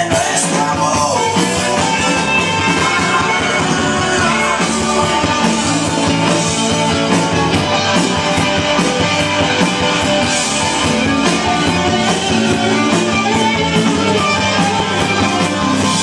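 Loud dance music with a steady beat, played over a DJ's party sound system.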